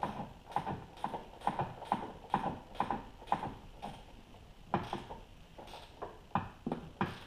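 Ratcheting wrench clicking in short, regular strokes, about two a second, as the front strut-top mount nuts are run down; the strokes pause briefly a little past halfway, then resume less evenly.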